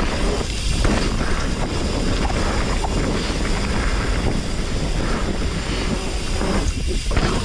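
Hardtail mountain bike descending a rough trail: a steady rush of wind on the GoPro's microphone over a low rumble of tyres, with scattered clicks and rattles.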